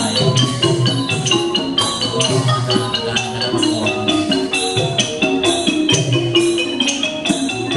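Live Thai piphat ensemble playing dance accompaniment: a rapid mallet-struck melody over a steady beat.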